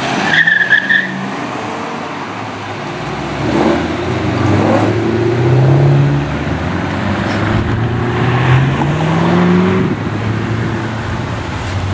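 Ford Mustangs driving past one after another, their engines running steadily and revving up as each car accelerates away, with rising engine notes about four to six seconds in and again about eight to ten seconds in.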